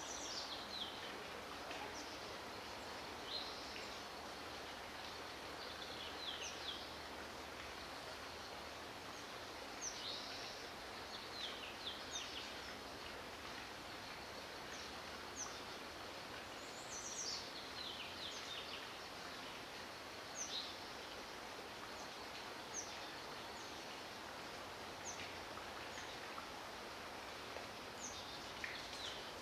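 Small birds giving short, high chirps that slide downward, scattered every second or two, over a steady background hiss.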